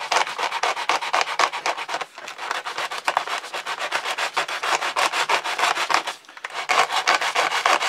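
Clear plastic model-aircraft canopy rubbed back and forth over coarse 100-grit sandpaper in quick, even scraping strokes, several a second, with brief pauses about two seconds in and about six seconds in. The canopy's edge is being sanded down so it sits snugly on the curved fuselage.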